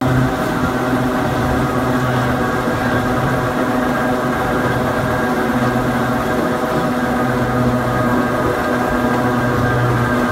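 Nose-suspended (tsurikake) traction motors and gears of a Hakone Tozan Railway Moha 1 electric car humming steadily with a layered whine as the car rolls slowly through a sharp curve. The low hum swells and fades every second or two.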